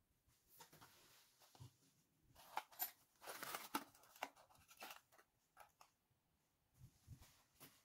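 Faint rustling and light clicks of a cardboard box of baking soda and a metal teaspoon being handled over a sink drain, with a louder patch of rustling a little before the middle.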